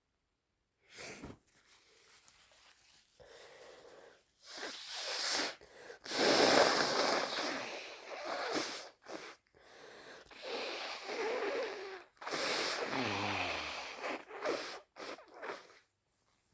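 A person with flu blowing a congested, snotty nose hard several times, long noisy blows with short sniffs between them; the longest and loudest blow starts about six seconds in.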